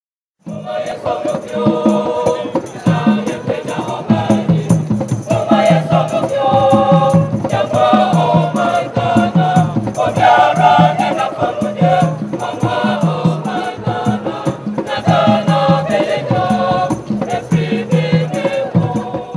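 Music with a steady beat, a shaker and voices singing, starting about half a second in.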